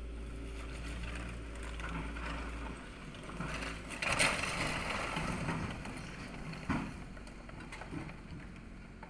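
An engine running steadily while a demolition excavator tears into an old building's tiled roof. About four seconds in comes a loud crash and clatter of roof tiles and masonry breaking, with a sharp knock near seven seconds and a smaller one just after eight.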